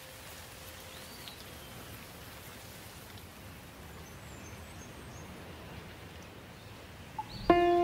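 Steady rain hiss, with a few faint bird chirps. Near the end a loud struck musical chord cuts in sharply and rings on.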